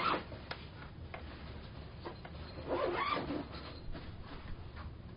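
Handling of a padded ring-light carrying bag: a few soft clicks and rustles as it is gripped, patted and shifted, with a brief murmured sound from the man about halfway through.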